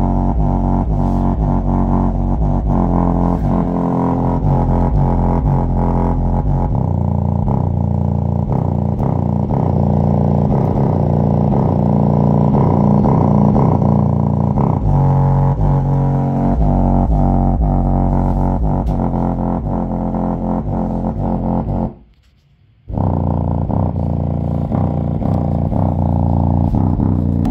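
6.5-inch prototype subwoofer driven hard in free air with a low bass signal during a power-handling test, giving a loud, steady drone rich in overtones. It cuts out briefly about three-quarters of the way through, then resumes.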